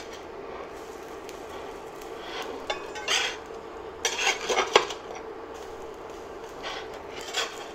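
Metal spatula scraping and clacking against a cast-iron skillet as potato pancakes are lifted and flipped, in a few short bursts, the strongest about four seconds in. A low steady frying sizzle runs underneath.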